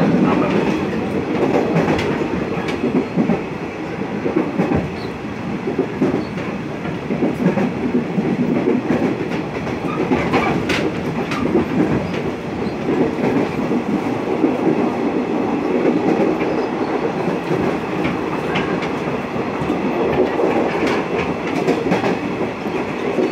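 Electric commuter train running at speed, heard from inside the carriage: a steady rumble of wheels on the rails with occasional sharp clicks from the track.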